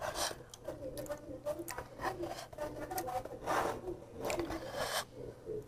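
A person chewing a mouthful of rice and fried glass noodles close to a clip-on microphone. Wet lip smacks and mouth clicks come every second or so.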